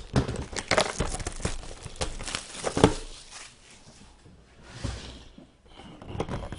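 Packaging being handled and opened by hand: crinkling and tearing with quick rustles and taps, busiest over the first three seconds and quieter after.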